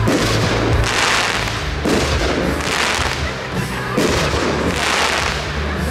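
Aerial firework shells bursting: several sharp bangs one to two seconds apart, each followed by about a second of fading crackle. Music plays underneath.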